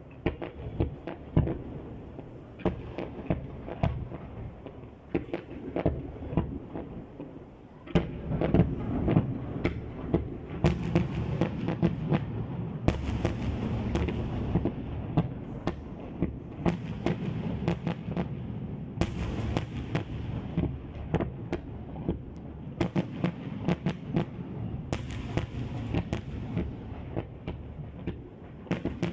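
Fireworks display with aerial shells bursting in a rapid string of bangs over continuous crackling. It grows louder and denser about eight seconds in, with several bright crackling flurries after that.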